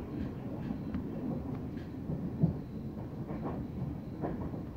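Passenger train running along the track, heard from inside the carriage: a steady low rumble with scattered clicks and knocks from the wheels and rails, and one louder knock about halfway through.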